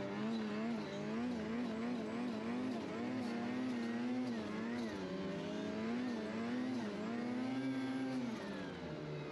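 Snowmobile engine running under way, its note wavering up and down a few times a second as the throttle and load change, over steady rushing noise. The engine speed drops briefly about halfway through and again near the end.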